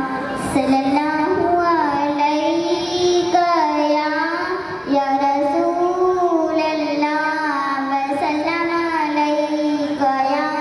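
A young girl singing solo into a handheld microphone with no instruments, in long held notes that glide up and down, pausing briefly for breath.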